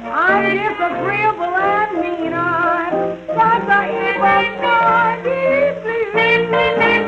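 Instrumental break of a 1920s jazz-blues record: a lead horn plays a solo of sliding, bending notes over a band accompaniment. The sound is muffled, with almost nothing in the top end, as on an old recording.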